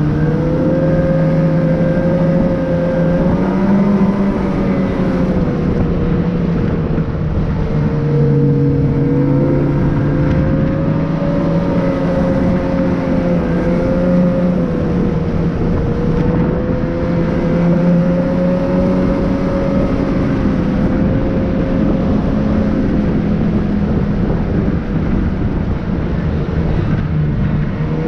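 Steady drone of a motor vehicle's engine with road noise, its pitch rising and falling gently.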